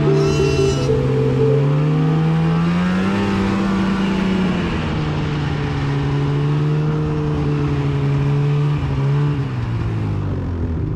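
Snowmobile engine running under throttle on a snowy trail; its note climbs over the first few seconds, holds steady, then drops near the end.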